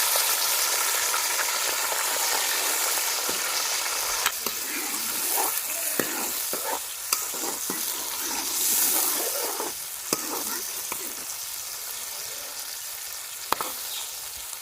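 Pieces of liver and onion sizzling in hot ghee, stirred with a spoon that clicks sharply against the pan several times. The sizzle is loudest at the start and eases off.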